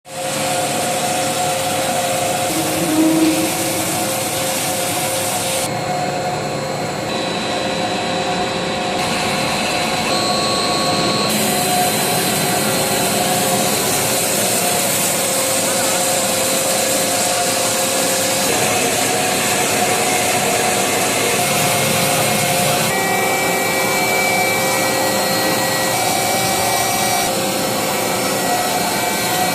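Horizontal band saw for metal running and cutting metal: a steady, dense whirring noise, with abrupt shifts in tone as one shot gives way to another.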